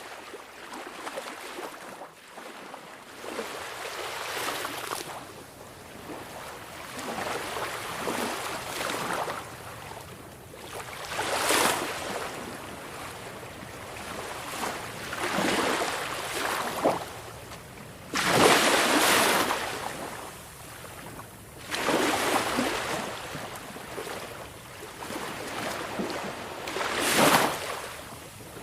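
Small waves of a calm sea washing onto the shore, one after another a few seconds apart, each swelling and falling away; a few break more sharply and loudly than the rest.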